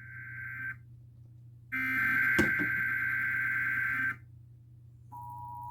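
Emergency Alert System SAME header data bursts: a raspy, buzzing digital screech that cuts off near the start, followed by a second burst about a second later that lasts about two and a half seconds. About five seconds in, the EAS two-tone attention signal begins as a steady dual tone.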